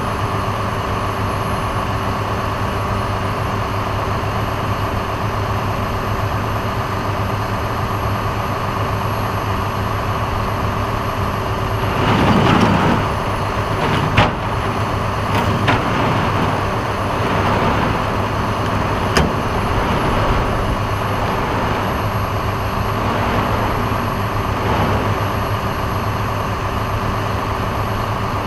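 Tow truck engine idling steadily, with a brief louder rush about twelve seconds in and a few sharp clicks after it.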